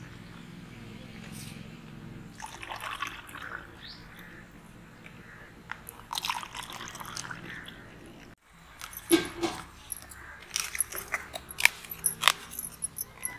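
Pineapple juice pouring from a steel pot into plastic cups, a soft liquid splashing. Then, about eight seconds in, a run of sharp plastic clicks and taps as lids and wooden sticks are fitted onto the cups on a glass table top.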